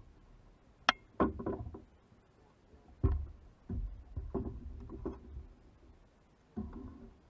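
A sharp click about a second in, then a string of irregular hollow knocks and thumps on a kayak.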